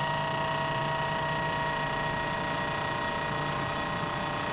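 CNC vertical mill's end mill cutting metal as it circles a bore at feed rate: a steady machining whine with several held tones. This is a first pass left deliberately undersize, with the machine being watched for vibration.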